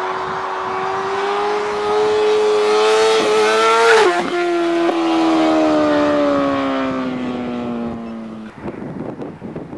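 Sport motorcycle engine at high revs passing close by: its pitch climbs as it approaches, drops sharply as it passes about four seconds in, then falls and fades as it moves away. About eight and a half seconds in the engine note ends and a rough noise is left.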